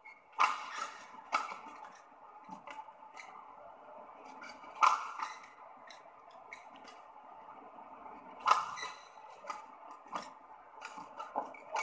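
Badminton rackets striking a shuttlecock during a doubles rally: sharp, irregular hits about a second apart, the loudest about five seconds in and again near the ninth second, over a steady hall hiss.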